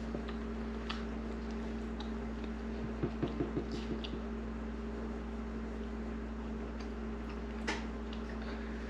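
Steady low electrical hum with a quick run of light clicks or taps about three seconds in and another single tap near the end.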